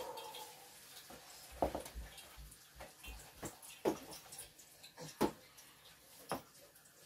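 A spoon stirring batter in a plastic bowl, knocking and scraping against its sides, with several sharp clacks spaced a second or so apart.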